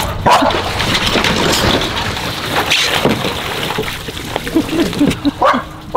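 Harbour water sloshing and splashing around a diver working at a boat's hull.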